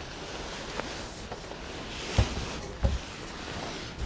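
Bagged sails being handled and shifted: a steady rushing noise with two dull thumps, about two seconds in and again just under a second later.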